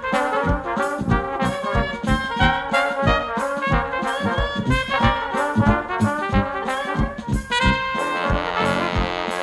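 Traditional jazz band playing: cornet, trombone and saxophone lines over a steady beat from sousaphone and drums. From about eight seconds in, the horns hold long notes over a cymbal wash.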